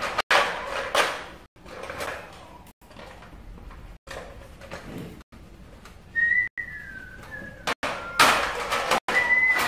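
Short rustling, scraping strokes, the loudest a little after eight seconds in, with a high whistle about six seconds in that slides down in pitch and a short steady whistle near the end.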